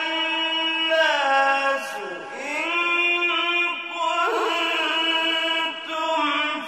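A male reciter chanting Quran verses in a melodic recitation style, holding long notes that glide slowly up and down, with short pauses about two seconds in and near the end.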